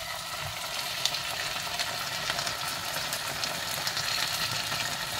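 Canned sardines in tomato sauce sizzling and crackling in a hot pan of frying onions as they are emptied in, a steady hiss with many small spattering crackles.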